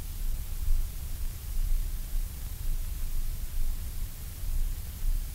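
Steady hiss with a low rumble underneath: the background noise of an old recording, with nothing else sounding.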